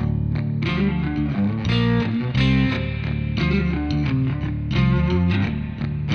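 Intro music with electric guitar and a steady beat.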